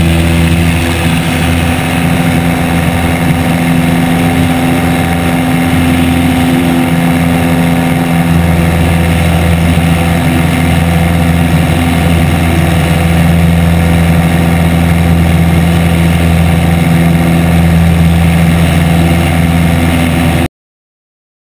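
Piper Super Cub's engine and propeller at full power through the takeoff roll and climb, a steady drone with rushing wind over the wing-mounted camera. The sound cuts off suddenly near the end.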